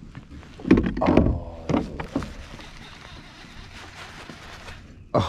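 A short wordless voice sound from the angler, then the faint steady whirr of a baitcasting reel being cranked in, and a sharp knock near the end.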